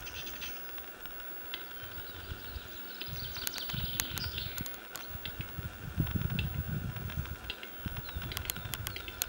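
Male western capercaillie in display, giving the dry clicking notes of its courtship song: a run of sharp clicks a few seconds in and another near the end. Small birds chirp behind it, and there is a low rumble that is loudest in the middle.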